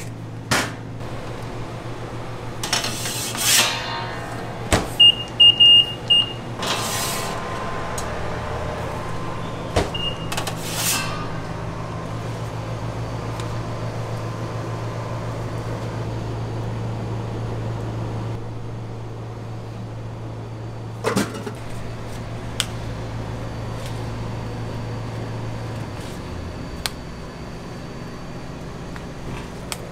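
Commercial kitchen sounds: a steady low appliance hum under food-prep handling and rustling noises, with about four short electronic beeps roughly five seconds in and one more near ten seconds, and a few sharp clicks later on.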